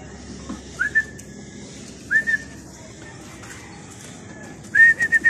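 A person whistling to call pigeons to the loft: two short whistles, each sliding up into a steady note, then a quick run of about five short whistles near the end.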